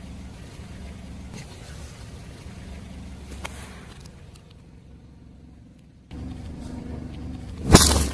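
A car's engine running low and steady, then near the end a loud sharp crunch as a tyre crushes an object.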